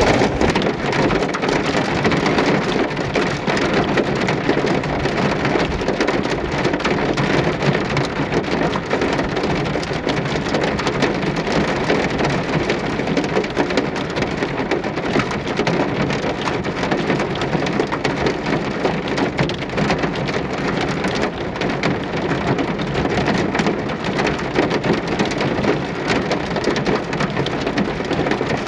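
Steady rain falling: a dense, even patter of drops hitting a surface, holding at one level throughout.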